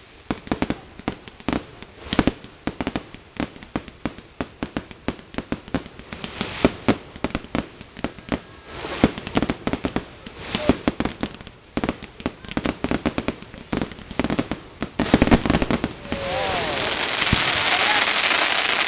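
Aerial fireworks bursting in a rapid string of sharp bangs and crackles, several a second. Near the end they merge into a dense, continuous crackling that is the loudest part.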